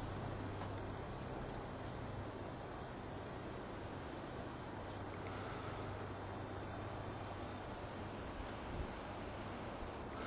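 Gentle, faint breaths blown into a tinder bundle to nurse a hand-drill coal into flame. A quick run of high, thin chirps, about three a second, fills the first six seconds.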